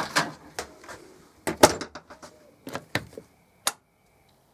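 Shed door being opened and handled: a string of sharp knocks and clicks, loudest at the start and about one and a half seconds in, the last about three and a half seconds in.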